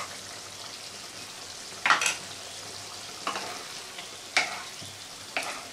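A potato and pointed gourd curry being stirred in a nonstick kadai: about four scraping strokes of the stirring utensil, the loudest about two seconds in, over a low, steady sizzle of the simmering curry.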